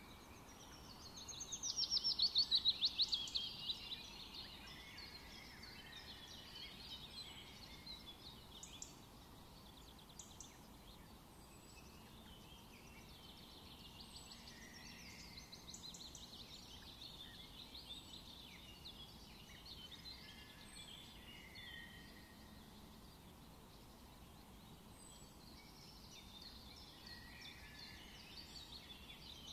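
Birds chirping and trilling, with a loud, rapid falling trill about two seconds in and softer chirps and calls for the rest.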